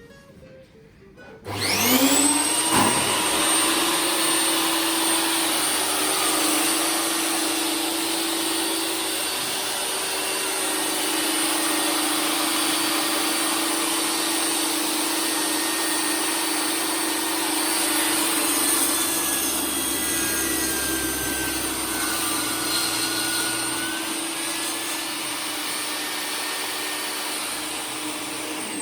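Electric power saw starting up with a rising whine about a second and a half in, then running steadily while cutting pine into a square. Its pitch sags for a few seconds about two-thirds of the way through as the blade takes load, and it begins to wind down at the very end.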